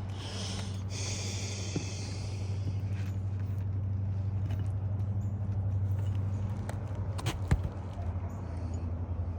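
A steady low machine hum, with a few sharp clicks about seven seconds in.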